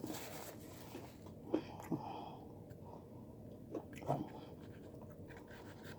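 Quiet chewing of crispy fried chicken, with a few short crunches.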